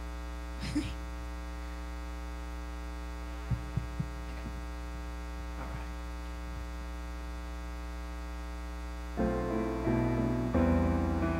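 Steady electrical mains hum through the church sound system, with a few faint clicks near the microphone. About nine seconds in, piano music begins.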